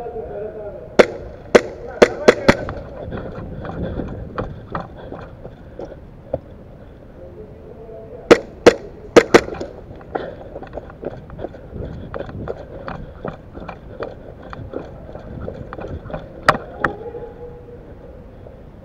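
Airsoft guns firing in scattered single shots and quick strings, with clusters of loud sharp pops about a second in, around eight seconds in and once more near the end.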